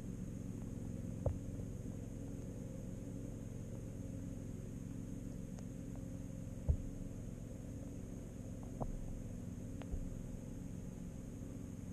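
Steady low hum of pond water heard through a submerged camera, with four short knocks spread through it, the loudest about halfway.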